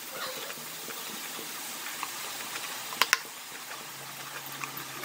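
Drops of gram-flour boondi batter falling through a perforated ladle into hot oil and sizzling steadily as they fry. Two sharp clicks come about three seconds in.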